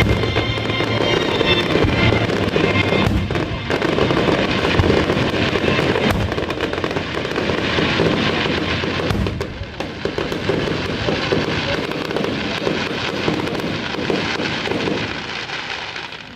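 Fireworks bursting and crackling in quick, dense succession, with the show's music playing underneath; the barrage dies away near the end.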